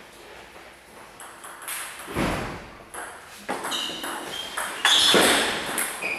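Table tennis ball clicking off bats and table during a rally, the hits coming in quick succession with a few short high squeaks among them. Near the end a much louder burst of noise rises over the hits.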